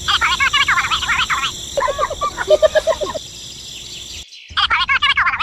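Squeaky, sped-up cartoon gibberish voices chattering in quick syllables. A high voice comes first, a lower voice answers in the middle, and the high chatter returns near the end.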